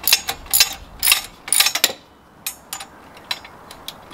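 Sharp metal clinks and scrapes as an exhaust pipe is fitted to a pit bike's engine: a quick run of clinks in the first two seconds, then a few fainter ones.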